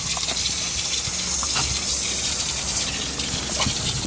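Water gushing from a garden hose outlet and splashing onto rocks, a steady rushing hiss.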